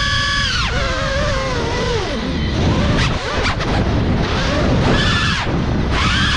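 GEPRC FPV quadcopter's brushless motors and propellers whining. The high whine drops in pitch as the throttle comes off less than a second in, gives way to rushing wind noise with a few sharp knocks around the middle, and climbs in pitch again near the end.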